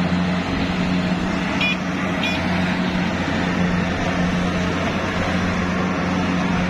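Kubota DC70 Plus combine harvester's diesel engine and threshing machinery running steadily at working speed while harvesting rice, a constant low drone. Two brief high chirps sound about two seconds in.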